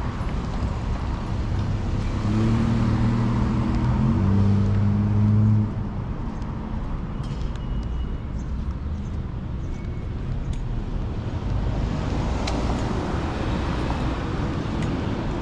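Town street traffic: a steady hiss of passing cars, with one vehicle's low, steady engine hum loudest for a few seconds before cutting off abruptly a little over a third of the way in.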